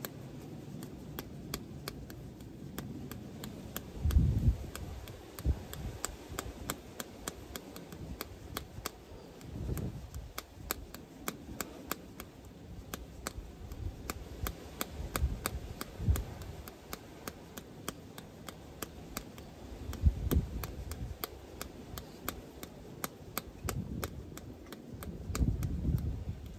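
A flip-flop dangling from a bare foot slapping repeatedly against the heel, a couple of sharp slaps a second in an uneven rhythm. A few duller low thumps come in among the slaps.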